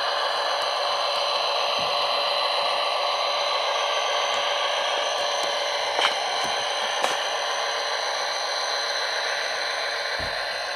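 HO-scale model SD45-2 locomotive's Tsunami sound decoder playing diesel prime-mover engine sound through its small speaker, running steadily, with a couple of light clicks about six and seven seconds in.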